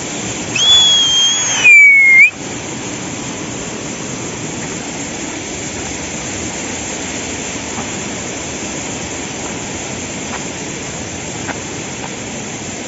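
Steady rushing of a rocky mountain stream. About half a second in comes a loud two-note whistle: a long high note, then a shorter lower note that flicks upward.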